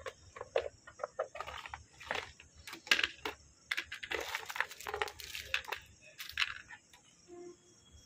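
Irregular clicks, knocks and rustles of hands handling hard plastic gear: a fusion splicer's lid and its plastic carrying case. They stop about seven seconds in.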